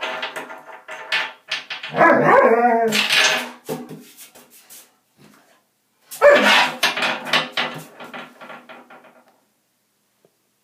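Doberman puppy barking in play, in bursts, loudest about two seconds in and again about six seconds in.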